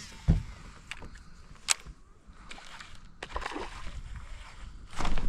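Water splashing and sloshing around a fishing kayak, with a dull knock just after the start and a sharp click a little under two seconds in, then a louder rush of splashing near the end.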